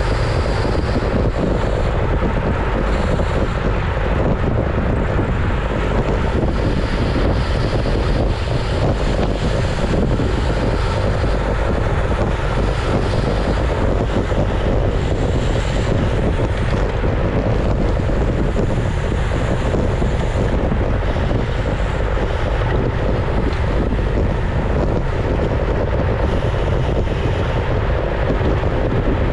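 Steady wind rushing over the microphone of a camera mounted on a road bike moving at race speed in a group of cyclists, with a low rumble of tyres on tarmac underneath.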